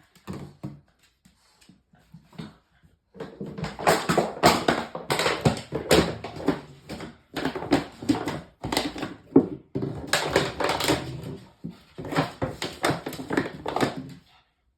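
A dog chewing and batting a bottle: dense runs of rapid crackling clicks that start about three seconds in, pause briefly a few times, and stop near the end.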